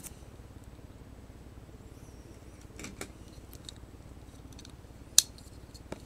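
Shrink-wrapped cardboard trading-card hobby boxes being handled on a table: scattered light taps and clicks, a soft rustle about three seconds in, and one sharp click about five seconds in.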